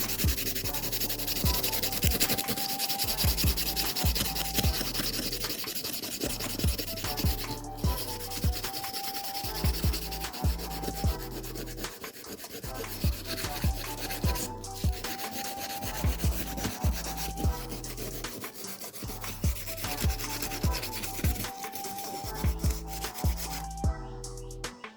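Steady, rapid abrasive rubbing on the steel teeth of a circular saw blade as it is sharpened by hand, breaking off briefly twice, with background music underneath.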